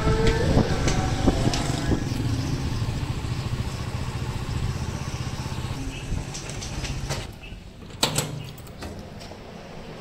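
Honda Pridor motorcycle's small single-cylinder engine running under way. It slows and fades after about seven seconds. A sharp knock comes about eight seconds in, followed by a few light clicks.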